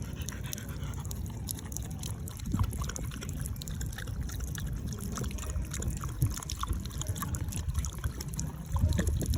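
Tap water trickling from a running faucet while a pug laps at the stream, with small irregular splashes. The sound gets louder and rougher near the end.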